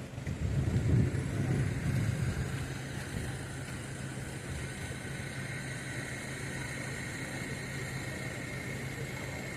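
Street traffic: a vehicle engine rumble swells over the first couple of seconds, then settles into a steady engine hum.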